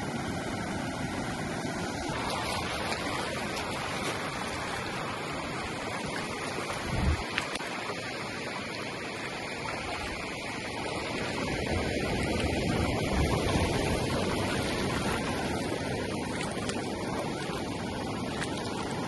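Steady wash of shallow surf with wind noise, swelling louder about twelve seconds in, with a brief low thump about seven seconds in.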